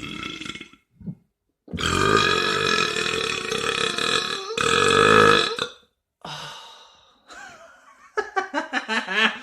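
A person burping: one long burp of about three seconds, then a second shorter burp straight after it, followed by softer, choppy voice sounds near the end.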